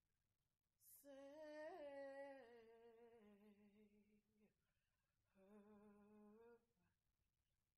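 A woman humming softly without accompaniment: a quick breath, then a long note that wavers and slides downward, a pause, and a second, shorter held note.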